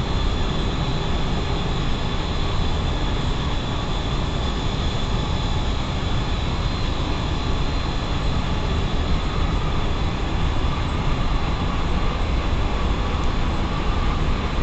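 Steady drone of running plant-room machinery: electric-motor-driven centrifugal water pumps for the chillers, with a thin high whine on top.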